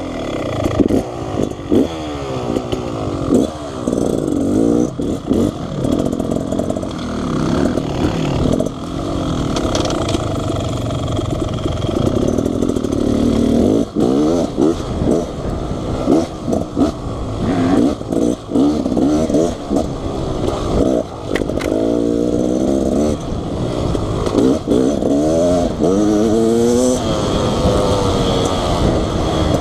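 Beta Xtrainer 300 two-stroke dirt bike ridden on a rough trail, the engine revving up and easing off again and again as the rider works the throttle, with rising pitch sweeps near the end. Knocks and clatter from the bike over the rough ground.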